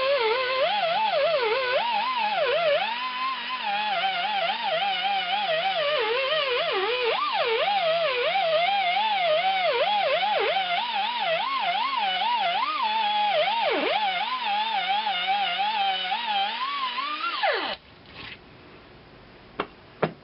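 Power tool spinning a Scotch-Brite wheel against the cast-iron underside of a bench vise. The motor whine wavers up and down in pitch as the load changes, then winds down and stops near the end.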